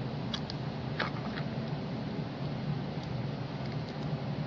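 Steady low background hum, with a few light clicks about half a second and a second in from a DIP chip's pins being handled and pressed onto a circuit board.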